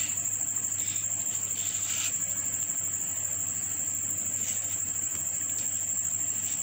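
A steady, high-pitched cricket trill runs throughout, over a low steady hum. A few soft scrapes of a blade working through mango flesh come through faintly.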